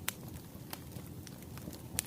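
Burning firewood crackling, with a steady low rumble of the flames and a few sharp pops: one just after the start, one a little later and a louder one at the end.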